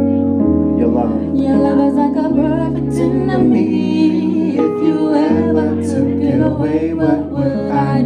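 Live singing into microphones over keyboard accompaniment, with held chords and bass notes that change every second or two under a wavering vocal line.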